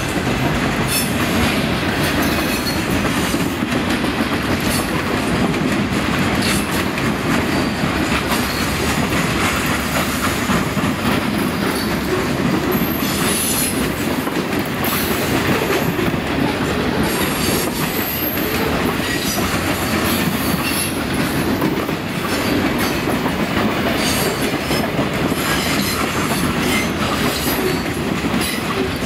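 Freight train cars (loaded centerbeam lumber flatcars and boxcars) rolling past at close range: a steady rumble of steel wheels on rail with continual clatter and clicks from the trucks and rail joints.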